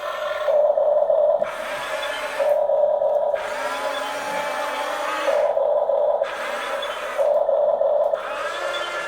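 Small electric motors of a toy RC excavator whirring in repeated spurts of about a second each, a steady whine alternating with a rougher, hissier whirr.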